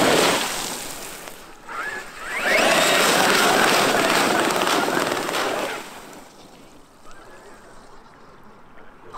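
Traxxas X-Maxx electric RC monster truck churning through a muddy puddle, its tyres throwing up water spray in two loud passes, the second starting about two and a half seconds in after a short rising motor whine. The sound drops away about six seconds in as the truck runs off across the grass.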